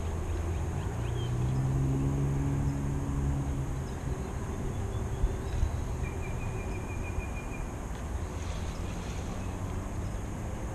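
Steady low outdoor rumble, with a droning tone rising out of it for a few seconds near the start. A short, high bird trill comes about six seconds in.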